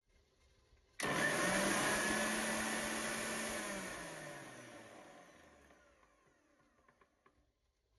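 Bajaj GX-1 500-watt mixer grinder motor switched on, running at full speed with a high whirring whine, then switched off and winding down, its pitch falling until it fades out.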